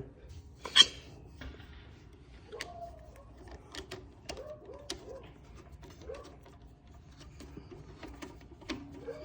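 Light scattered clicks and taps of small engine parts being handled and refitted while a carburetor is installed on a go-kart engine, with one sharper click about a second in. Faint wavering sounds in the background.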